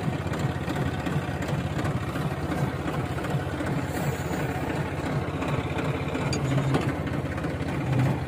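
New Holland 3510 tractor's three-cylinder diesel engine idling steadily.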